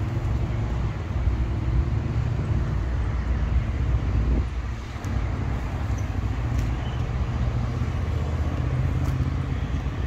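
Steady low rumble of road traffic passing nearby, with some wind on the microphone.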